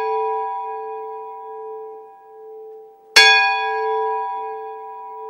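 A bell rings out: it is already fading from a strike just before, then is struck again about three seconds in and slowly dies away.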